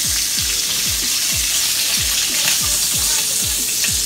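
Bacon sizzling in a frying pan, a steady crackling hiss. Under it, background music with a steady thumping bass beat, about two and a half beats a second.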